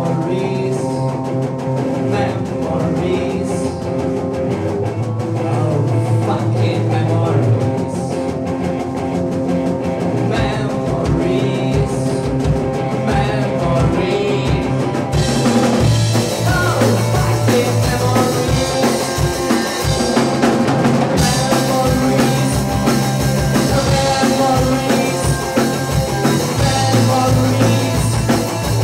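Live rock band playing through amplifiers: electric guitar and bass guitar hold a droning intro, drums come in about ten seconds in, and the full band with cymbals plays from about fifteen seconds.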